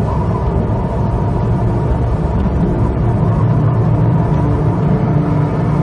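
Steady low rumble of strong wind blowing ahead of an approaching storm.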